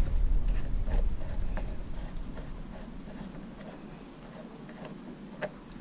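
Light handling noises from a gloved hand working the fittings on an irrigation-system tap: faint rubbing and a few small clicks, the sharpest about five seconds in. A low rumble fades out over the first two seconds.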